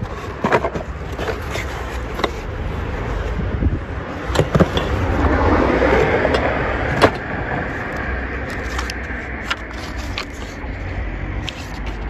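Hands rummaging in a cardboard box, with scattered knocks and rustles of cardboard, paper and cloth being moved. A car passes, swelling up about four seconds in and fading by about eight, over a steady low street rumble.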